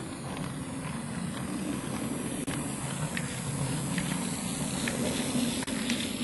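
Model freight train with a Brawa SOB Te 31 tractor running past on metal track: a steady motor hum and wheel rumble with irregular clicks as the wheels cross rail joints, getting louder toward the end as the train passes close by.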